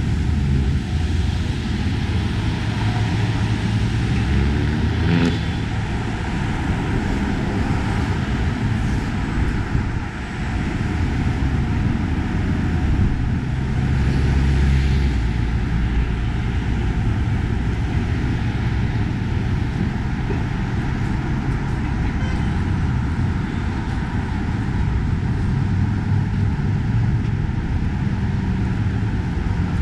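Steady rumble of city street traffic, cars and buses passing on a busy avenue, with one engine rising in pitch about five seconds in.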